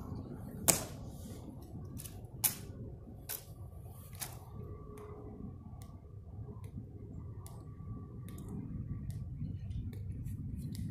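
Tomb guard's metal-tapped shoes clicking on the stone plaza as he marches, a sharp click with each step at a steady walking pace. Two louder, sharper clicks come in the first few seconds.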